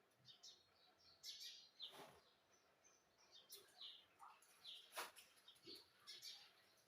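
Indian ringneck parrot making faint, soft chirps and clicks, scattered and short, with a sharper click about five seconds in.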